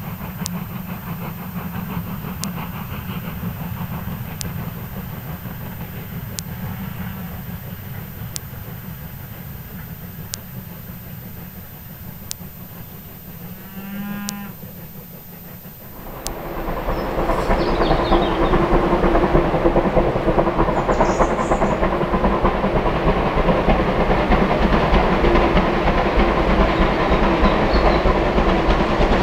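Bulleid West Country class Pacific 34028 'Eddystone', a three-cylinder steam locomotive, working hard up the 1 in 49 gradient; it grows loud about halfway through and stays loud. Before that a steam train sounds faintly in the distance, and a cow moos once.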